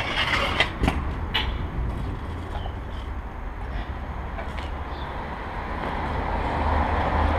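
A few sharp clacks of stunt scooters hitting the concrete ledge and rail in the first second and a half, then a steady low rumble and hiss of outdoor noise that swells slightly near the end.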